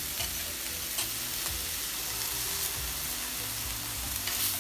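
Ground-chicken burger patties sizzling steadily on a griddle, with a few light scrapes and taps of a metal spatula on the griddle as it slides under a patty.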